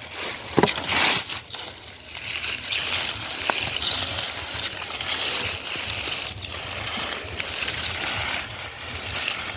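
Muddy water sloshing and splashing as it is stirred and worked through by hand, with a couple of sharper splashes about a second in.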